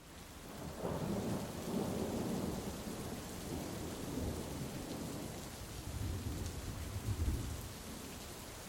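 Thunderstorm: steady rain hissing, with thunder rolling in about a second in and a second rumble around six to seven seconds, dying away near the end to leave the rain alone.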